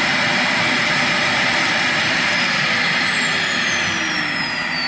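Dyson DC40 upright vacuum cleaner's motor running with a steady rushing noise and a high whine. A bit over two seconds in, the whine starts a slow, steady fall in pitch as the motor spins down after being switched off.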